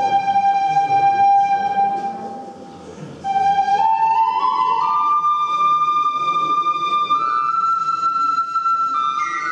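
A flute-type wind instrument playing a slow melody of long held notes. One long note fades out, then the melody comes back and steps upward note by note, each held for a second or more.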